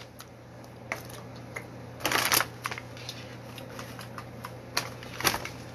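Light scattered clicks and a short rustle about two seconds in, as things are handled on and around a table.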